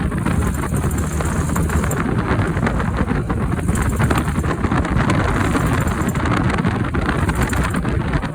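A car running, with a rapid clicking that goes on throughout over the steady engine and road noise.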